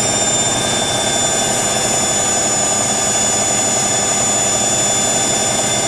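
Hoover WDYNS654D slim washer dryer running at a steady pace: an even rushing noise with a constant high-pitched whine over it.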